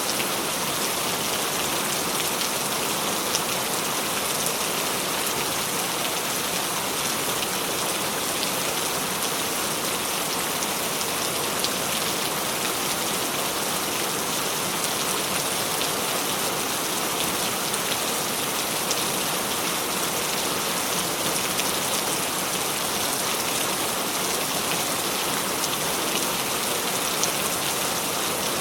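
Steady rain: an even hiss with scattered single drops ticking through it.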